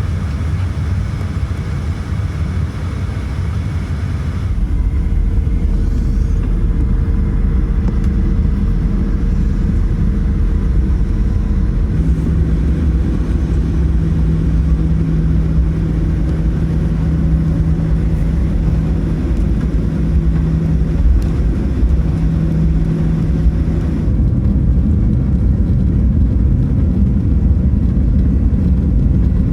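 Steady low rumble of a Boeing 737's jet engines heard from inside the cabin as the airliner taxis, joined in short edited segments. The engine tone shifts at each cut, and the takeoff roll begins near the end.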